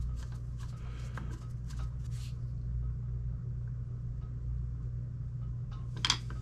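Small metal clicks and taps from fitting a Magpul pistol grip to an AR-15 lower receiver, a few in the first two seconds and a short cluster of sharper clicks near the end, over a steady low hum.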